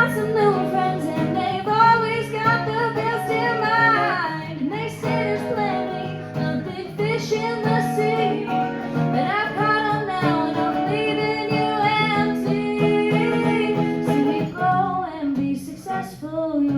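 Live country song: a woman singing over acoustic guitar accompaniment.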